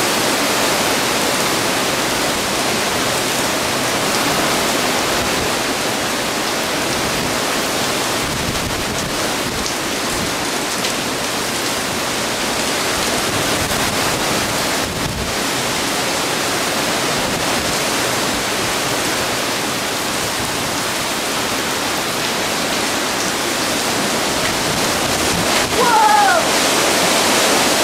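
Heavy hurricane rain pouring steadily, a dense, even hiss.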